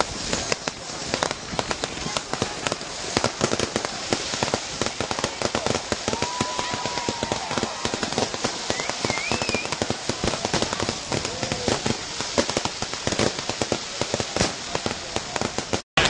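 Fireworks crackling and popping rapidly without a break, many sharp cracks a second.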